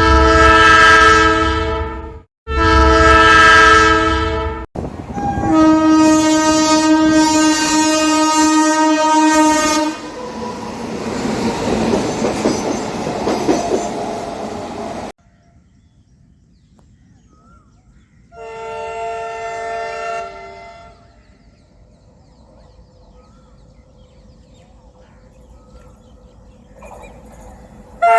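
Indian Railways locomotive air horns: two long blasts, then a longer, lower-pitched blast, followed by the rumble and clatter of a train running past. After a quieter stretch there is one shorter blast.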